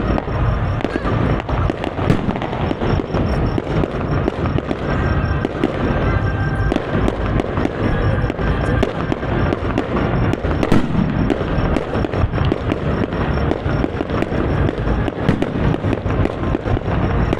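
Fireworks finale (traca): a dense, continuous barrage of rapid explosions and firecracker bangs with no let-up.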